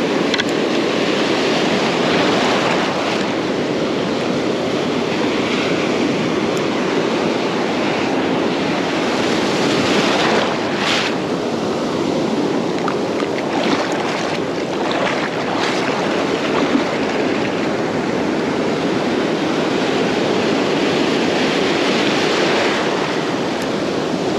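Ocean surf washing and breaking in the shallows close around the microphone, a steady rushing hiss of foaming water, with a few sharper splashes around the middle.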